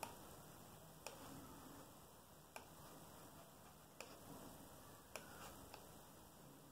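Near silence: room tone with five or six faint, sharp clicks at uneven intervals about a second apart.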